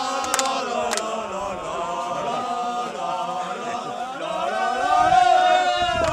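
A group of men's voices chanting together in unison, holding long notes: rugby players singing a team chant.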